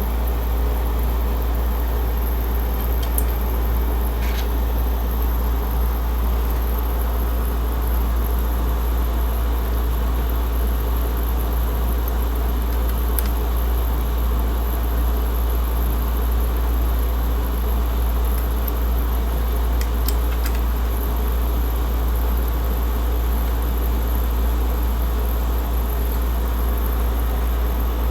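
Steady low machine drone with a few faint clicks scattered through it.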